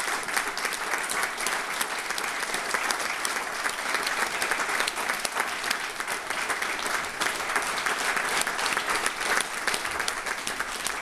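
Audience applauding: many hands clapping at once in a steady, even stream.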